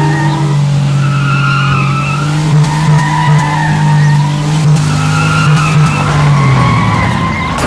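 A car doing donuts, its engine held at high revs in a steady drone while the spinning tyres squeal, the squeal wavering in pitch and coming in repeated waves.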